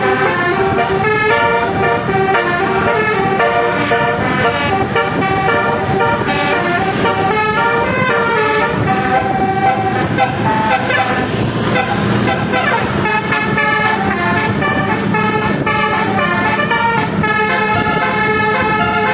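Indonesian multi-tone 'basuri' telolet bus horns playing continuous melodies of stepped notes, over vehicle noise.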